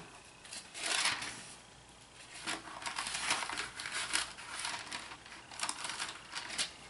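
Bible pages turned by hand: a series of soft, irregular papery rustles and crinkles as the thin pages are leafed through to find a passage.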